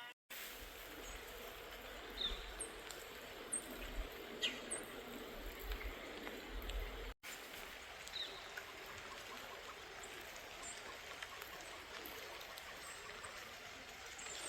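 Faint outdoor ambience of steady trickling water, with a few short high bird chirps. The sound drops out for an instant about seven seconds in.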